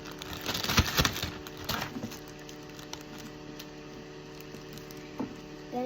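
A quick cluster of knocks and clatters from objects being handled, about half a second to a second in, with another knock near two seconds and one more near the end, over a steady electrical hum.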